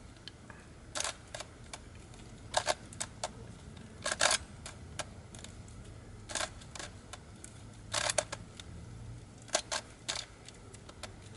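Plastic Rua rhombic dodecahedron twisty puzzle being scrambled by hand with half turns: irregular clicks and clacks of the pieces, often two or three in quick succession, about once or twice a second.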